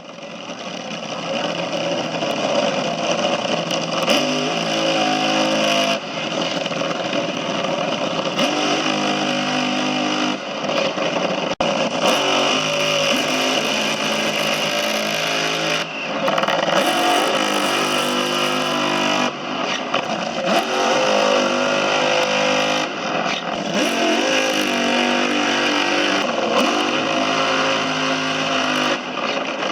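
Top Fuel dragster's supercharged nitromethane V8 running loud and continuously, its pitch shifting up and down every few seconds.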